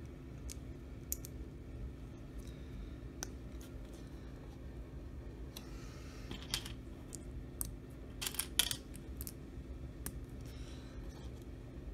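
LEGO plastic bricks being handled and clicked together while a small model is built by hand: scattered light clicks, with a short run of louder clicks about eight and a half seconds in, over a faint steady hum.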